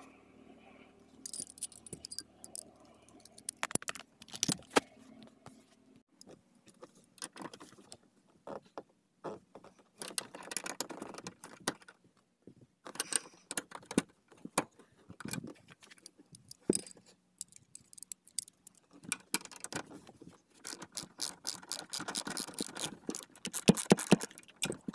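Hand ratchet wrench clicking in irregular runs as it works a car seat's floor-rail bolt, with light metallic clinks of the tool. The clicking is densest near the end.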